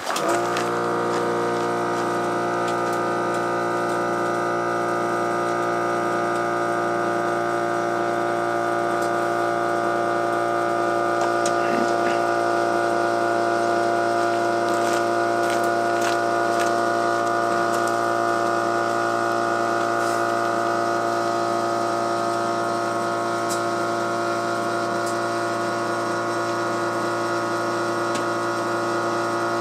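A motor on the horse ambulance trailer starts suddenly and runs with a steady, unchanging hum.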